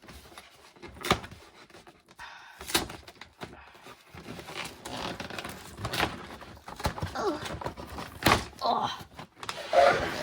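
Cardboard toy box and its packaging being handled and pulled open by hand, with rustling and several sharp knocks and thunks spread through.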